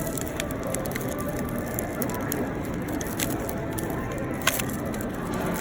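Steady background noise with faint scattered clicks, and one sharper click about four and a half seconds in.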